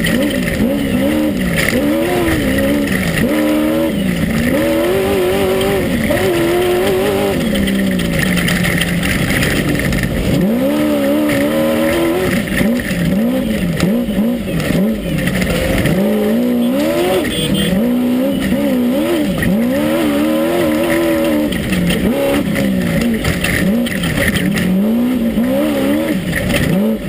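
Class 1 unlimited off-road race buggy's engine heard from inside the car at racing speed, its pitch rising and falling again and again as the throttle is worked, over a constant rush of noise with scattered knocks.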